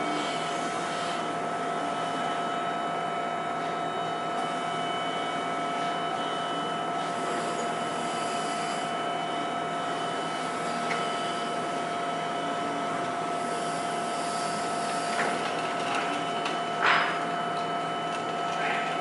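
A steady mechanical drone with several constant whining tones running through it, and a single short knock near the end.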